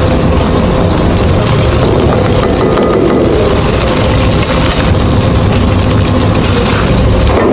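Gas wok burner running steadily under a wok of hot oil that is frying and bubbling around clumps of cornstarch batter, which trap the old debris in the oil.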